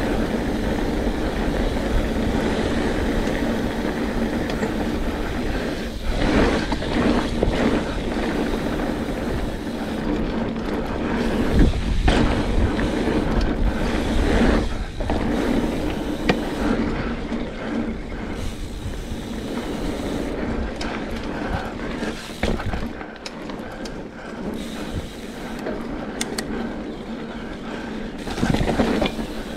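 Mountain bike rolling along a dirt singletrack: steady tyre and drivetrain noise, with the frame and parts rattling and knocking over bumps, the hardest knock about twelve seconds in.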